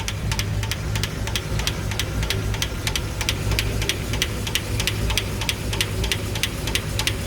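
V-engine idling with one bank's valve cover off, its exposed valve train (rocker arms and hydraulic lifters) ticking rapidly and evenly over a low engine hum. This is the noisy valve train under investigation; the owner suspects a hydraulic lifter that no longer runs well on the camshaft.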